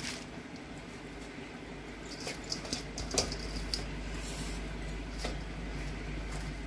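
Wooden spoon stirring chopped spinach into chicken in a clay pot, with several sharp knocks of the spoon against the pot over a steady low hum.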